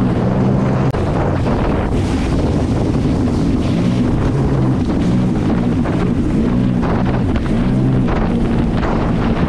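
Sea-Doo Spark Trixx personal watercraft's three-cylinder engine running underway, over wind rush on the microphone and water spray. For about the first three seconds the engine note holds steady; after that its pitch rises and falls again and again.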